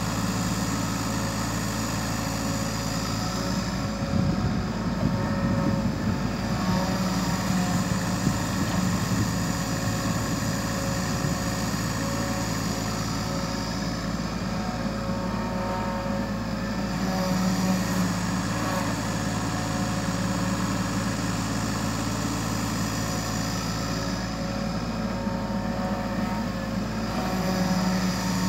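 Kubota U35 mini excavator's diesel engine running steadily while it digs and mixes soil, the engine note swelling louder three times as the hydraulics take load.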